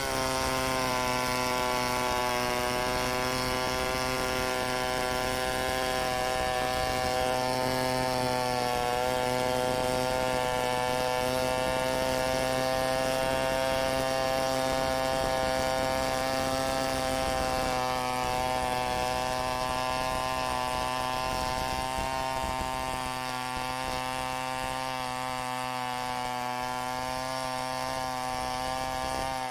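Two-stroke chainsaw running at full throttle under load, its chain ripping lengthwise along a log in a freehand milling cut. The engine note stays steady with a slight dip about nine seconds in.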